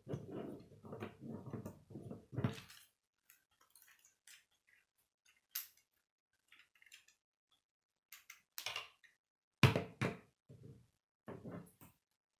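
K'nex plastic rods and connectors clattering and clicking as they are handled and fitted together: a busy run of small clatter for the first couple of seconds, then scattered sharp clicks and knocks, the loudest about three-quarters of the way through.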